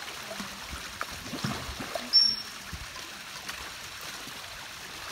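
Pool water sloshing and splashing as seals swim up to be fed, with one short, high whistle blast a little over two seconds in from the keeper's training whistle.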